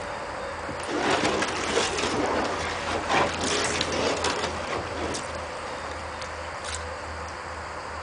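Water sloshing and splashing as a hand sweeps through a shallow vat of soaked, torn-up paper pulp and works a window screen under the surface. It is busiest between about one and five seconds in, then settles to light swishing.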